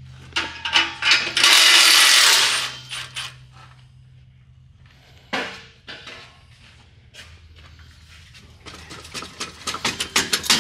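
Hand-tool work on a truck's exhaust: a loud burst of hiss about two seconds in, a single sharp clank midway, and a quick run of ratchet clicks near the end, over a steady low hum.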